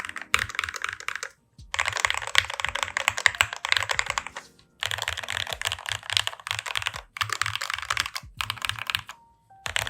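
Fast typing on a NovelKeys NK87 aluminium mechanical keyboard with lubed Everglide Aquaking linear switches and GMK keycaps: a creamy clatter of keystrokes in several runs, broken by short pauses.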